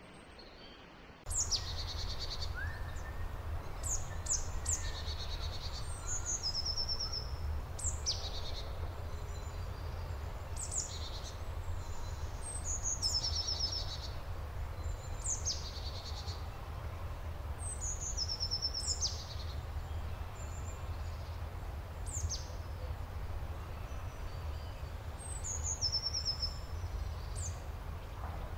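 Songbirds singing in woodland: short songs of quick high whistles falling in pitch, followed by rapid trills, repeating every two to three seconds over a steady low rumble. The sound starts abruptly about a second in.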